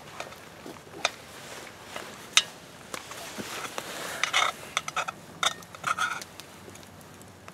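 Metal spoon clinking and scraping against a cast-iron Dutch oven while scooping out soft baked bread. A few sharp clicks come first, the loudest about two and a half seconds in, then a run of quick scrapes from about three to six seconds in.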